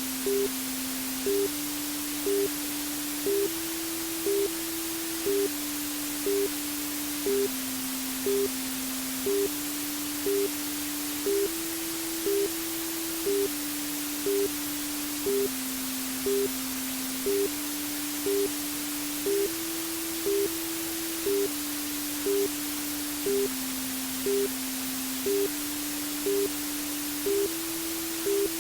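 Steady white-noise hiss for baby sleep, with a soft low tone underneath that steps between a few pitches about every two seconds like a slow simple melody, and short higher beeps about once a second.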